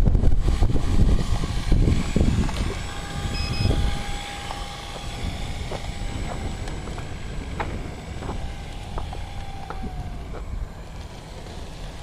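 Wind buffeting the microphone, a heavy low rumble that eases after about four seconds. Under it a faint steady whine, which drops slightly in pitch near the end.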